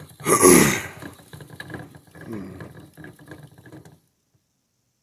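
Plastic hamster wheel rattling steadily as the hamster runs. A person's voice gives a loud falling sound about half a second in and a softer falling one about halfway through. The sound cuts out after about four seconds.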